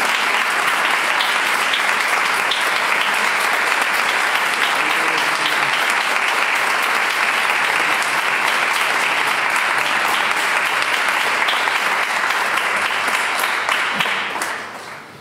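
Audience applauding steadily and loudly, dying away near the end.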